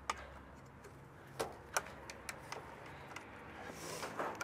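Faint scattered clicks and taps of a plastic liquid-tight conduit fitting and wires being handled into the bottom of an AC disconnect box, with a short rustle near the end.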